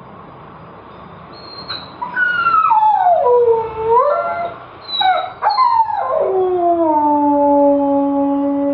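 Husky howling, starting about two seconds in. A first howl slides down and back up, a couple of short yips follow, then a long howl falls and holds a low, steady note.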